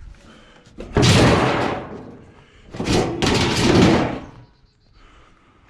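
Scrap metal thrown onto a pile: two loud clattering crashes about two seconds apart, each lasting about a second before dying away.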